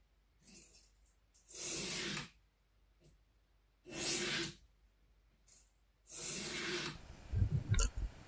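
Steel boning knife blade rubbed flat-ish on a sharpening stone in three long grinding strokes about two seconds apart, with fainter short scrapes between them, grinding a shoulder bevel in at about 15 degrees. Near the end, rustling and light knocks as the blade is wiped with a rag.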